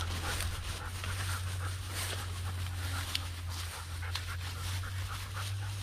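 A Doberman panting and sniffing as she noses through leafy undergrowth, with leaves rustling in irregular crackles, over a steady low hum.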